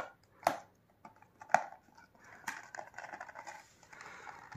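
Fingers picking at and peeling tape off a small cardboard box: three sharp clicks about a second apart, then a stretch of soft rustling and scratching.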